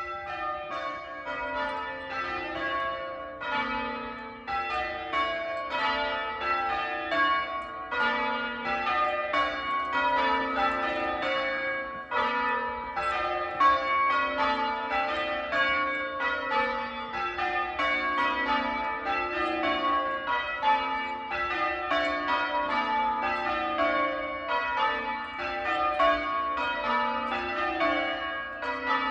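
Church bells being change-rung, struck one after another in a steady, even stream of overlapping ringing tones. The ringing starts suddenly at the outset.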